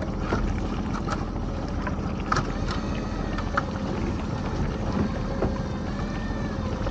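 Small open fishing boat's motor running steadily at idle, with wind and sea noise. Scattered sharp knocks and clicks come from a crab pot being handled on board.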